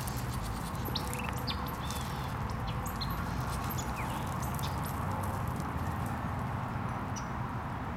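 Birds chirping in short, scattered calls over a steady low rustle.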